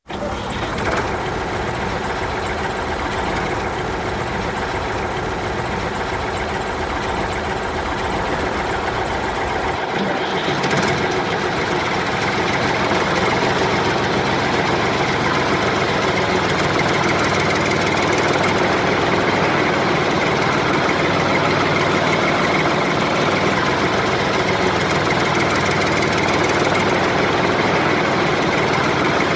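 Tractor engine running steadily. About a third of the way in the sound changes: the deep low rumble falls away and it becomes slightly louder, then runs on steady.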